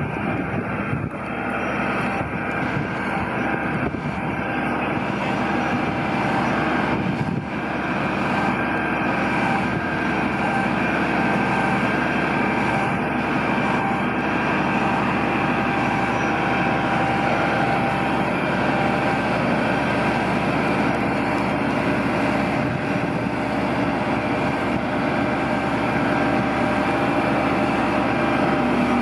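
Fire appliance's diesel engine and pump running steadily while the aerial platform's monitor sprays water: a continuous drone holding several steady tones.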